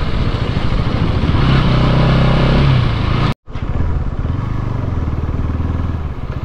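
Motorcycle engine running while riding, its note rising for a second or so then settling back. The sound cuts out completely for a moment about halfway through.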